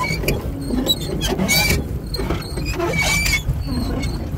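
Pedal boat's pedal drive squeaking as it is pedalled, a short high squeal repeating about every second and a half, over a low rumble of wind on the microphone.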